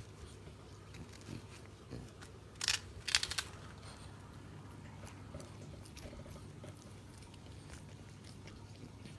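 French bulldog biting and crunching prawn crackers: a loud burst of crisp crunches about two and a half to three and a half seconds in, with fainter chewing clicks around it.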